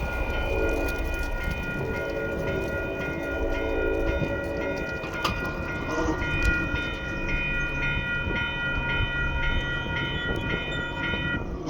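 Railroad grade-crossing warning bell ringing steadily at about two strokes a second, then stopping just before the end as the crossing clears. In the first few seconds the departing commuter train's horn sounds twice.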